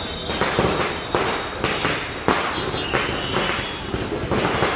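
Firecrackers going off in quick, irregular bangs, sometimes several in a second, each with a short echoing tail.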